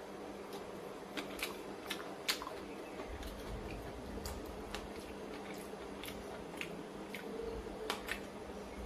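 A man chewing a mouthful of chicken curry: faint, irregular clicks and smacks from his mouth, over a steady low hum.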